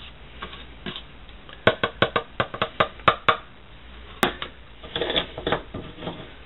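A quick run of light clicks and taps, about eight a second for a couple of seconds, then a few more, as ground dock-seed flour is tipped and tapped out of a plastic bowl into a glass measuring cup.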